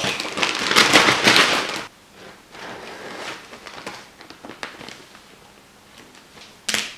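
Plastic zip-lock bag crinkling as it is handled and a sheet of paper is slid into it: a loud crackling rustle for about two seconds, then quieter scattered crinkles and light taps, with a sharp click near the end.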